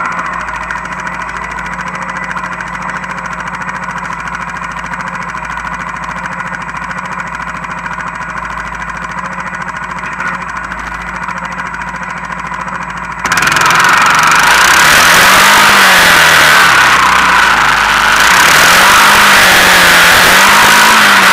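Honda Foreman 450 ES quad's engine running steadily while towing sleds through snow. About two-thirds of the way in it suddenly gets much louder, with a rushing noise over it and the engine pitch rising and falling a few times as the throttle is worked.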